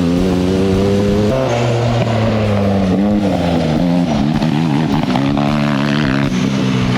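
Off-road buggy engine under hard acceleration. Its pitch climbs steadily, drops sharply at a gear change about a second in, then rises and falls as the throttle is worked.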